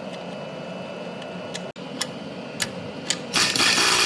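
A few light clicks and taps of workshop tool handling over a low steady hum, then near the end a loud, harsh rasping tool noise starts and keeps going.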